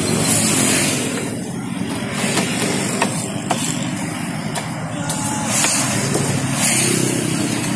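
Steady hum of a vehicle engine and street traffic, with a few sharp knife taps as fried tofu is cut on a wooden board and hot oil bubbling in a wok.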